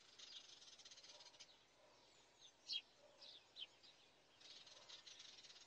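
Near silence, with a few faint, short bird chirps here and there.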